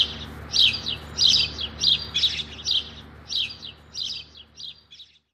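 A small songbird chirping: quick high chirp phrases about twice a second, growing fainter and stopping about five seconds in.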